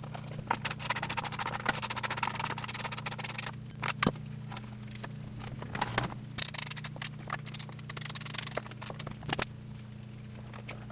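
Rapid ratchet-like clicking in two long runs, with two sharp knocks between them, as a tap is turned to cut new threads for a helicoil in the stripped spark plug hole of a Toro Recycler mower's aluminum cylinder head. A low steady hum runs underneath.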